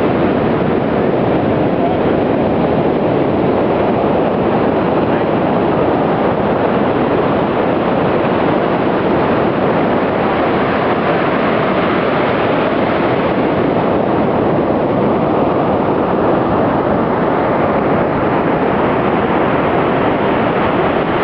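Ocean surf breaking on the beach, a steady unbroken rush, mixed with wind on the microphone.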